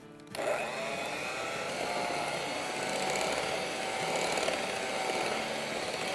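Electric hand mixer switching on a moment in and running steadily, its beaters whisking chocolate cake batter in a glass bowl.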